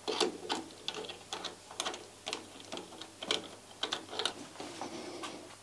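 Irregular small metallic clicks and scrapes, two or three a second, as a grinding wheel's mandrel is pushed into a palm router's collet and the collet nut is turned by hand.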